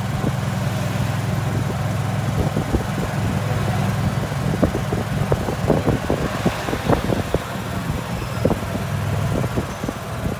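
Golf cart driving along a street: a steady low motor hum under wind and road noise, with frequent small rattles and knocks.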